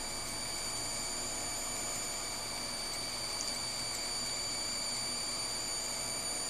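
Faulty computer power supply (PSU) buzzing steadily: an electrical whine of several steady high tones over a constant hiss. The buzz grows with load on the PSU and is the sign of a failing unit, with the problem seeming to lie in its PCIe rails.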